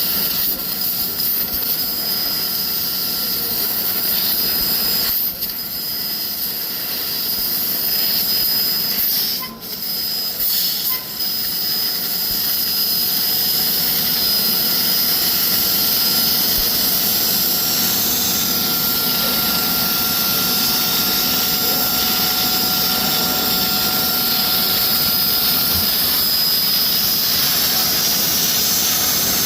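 CNC laser cutting machine running, a loud steady hiss with faint high whining tones, dipping briefly a few times as the cut pauses.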